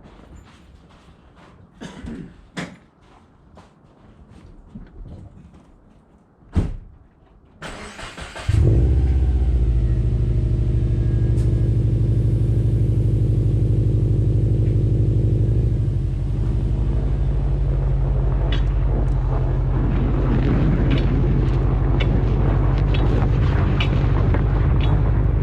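A few scattered clicks and knocks, then the 2014 Subaru WRX's turbocharged flat-four engine starts about eight seconds in and runs steadily. In the second half, sharp irregular ticks sound over the engine.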